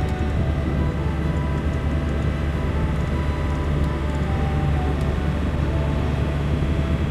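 A boat's engine running steadily: a constant low drone with a faint whine above it.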